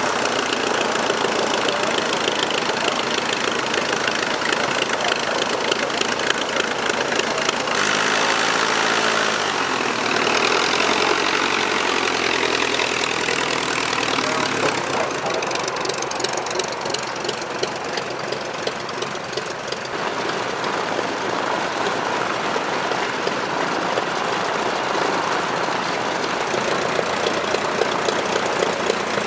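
Vintage light-aircraft piston engines idling on the ground, mainly a de Havilland Tiger Moth biplane's engine just after start-up, a steady rapid beat. The sound changes abruptly about 8, 15 and 20 seconds in.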